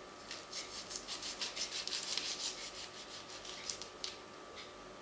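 A kitchen knife sawing back and forth through the plastic casing of a tube of ground beef: quick rasping strokes, several a second, that die away after about three and a half seconds.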